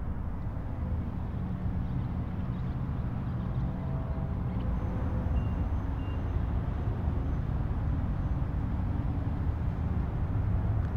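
Steady low rumble of distant highway traffic, with two faint short beeps about halfway through.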